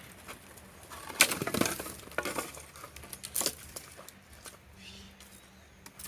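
Pieces of firewood knocking and clattering together as they are gathered and loaded, in a cluster of knocks starting about a second in and a single knock a little later.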